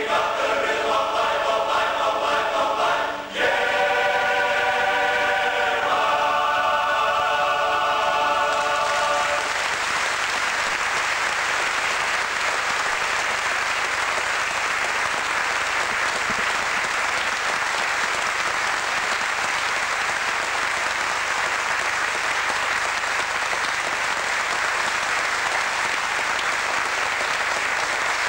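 Male voice choir singing the closing bars of a song, ending on two long held chords, then an audience applauding steadily for the rest.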